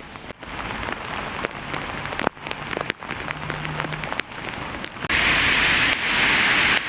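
Heavy rain falling, with many close drops pattering; it grows suddenly louder about five seconds in.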